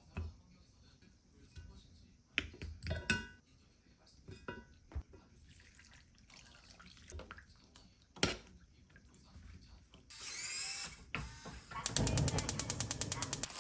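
Kitchen handling sounds: scattered knocks and clatters, a rustle about ten seconds in, then a rapid, evenly spaced run of sharp knocks near the end.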